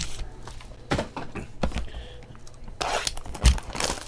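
Foil wrapper of a trading-card pack crinkling and cards being handled on a table: a few sharp clicks, a burst of rustling near three seconds, and a thump just after.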